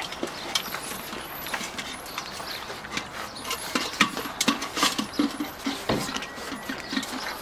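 A litter of bulldog puppies feeding from stainless steel saucer-shaped puppy pans: a busy run of irregular clinks, knocks and scrapes of the metal pans, with chewing and paws on the paving. The clatter is thickest about four to five seconds in.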